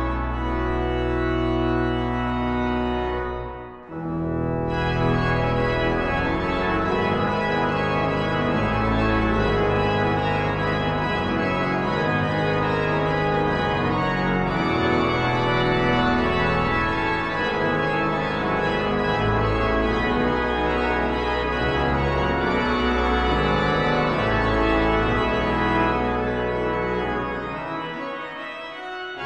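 Pipe organ playing sustained full chords over deep pedal notes. The sound breaks off briefly about four seconds in, then resumes, and grows quieter for a moment near the end before coming back in full.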